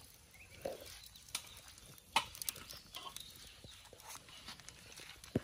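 Scattered sharp clinks of metal skewers against a metal bowl and steel tray as kebabs are threaded, the loudest about two seconds in and just before the end. A short animal call sounds near the start.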